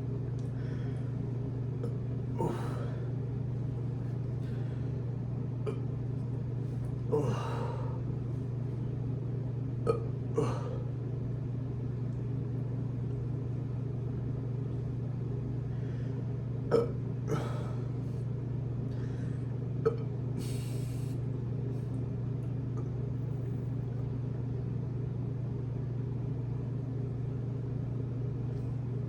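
A person belching from a bloated stomach: several short burps spread out, some in quick pairs, over a steady low hum.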